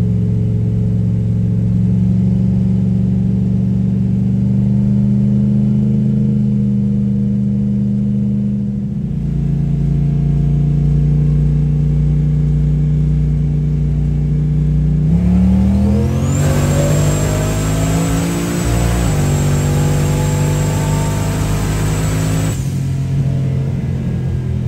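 Car engine heard from inside the cabin, first cruising at a steady note with one step down in pitch. About two-thirds of the way through it is floored for a test pull: the revs climb with a high whine over the top, break briefly, climb again, then fall back as the throttle is lifted near the end.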